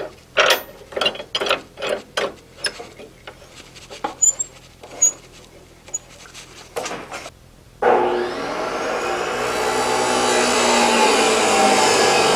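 Metal clicks and rattles as the vise screw of an abrasive chop saw is tightened on a steel die blank. About eight seconds in, the DeWalt chop saw starts with a sudden loud whine that climbs as the motor spins up, and its cut-off wheel is cutting into the 4140 steel by the end.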